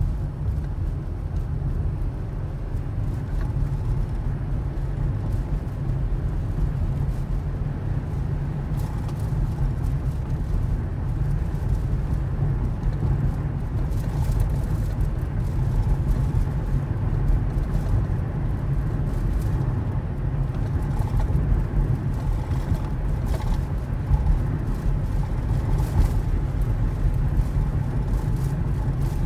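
Car being driven, a steady low rumble of engine and tyres on the road.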